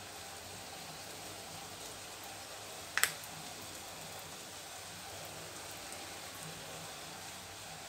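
Balls of rice and urad dal batter deep-frying in hot oil in a steel kadai: a steady crackling sizzle, with one sharp click about three seconds in.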